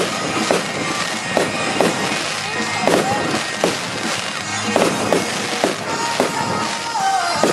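A fireworks display: aerial shells bang repeatedly at irregular intervals over continuous crackling.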